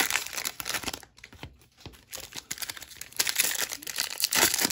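Foil trading-card pack wrappers crinkling as they are handled, quieter for a moment about a second in, then crinkling more loudly again in the last second and a half.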